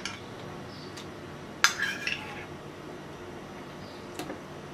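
Spoon clinking against a cup and a steel blender jar while soaked basil seeds are spooned into carrot juice: one sharp ringing clink about a second and a half in, and a couple of lighter taps near the end.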